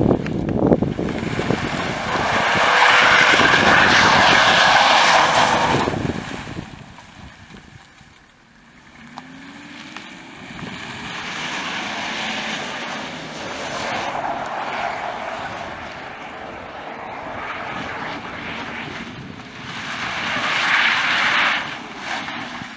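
BMW E39 530d's 3.0-litre M57 inline-six turbodiesel revving hard as the car drifts, its rear tyres squealing through long stretches, loudest about two to six seconds in and again near the end. In between, the engine note rises and falls as the driver works the throttle.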